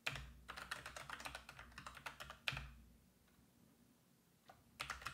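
Faint typing on a computer keyboard: a quick run of key clicks for about two and a half seconds, a pause, then a few more keystrokes near the end.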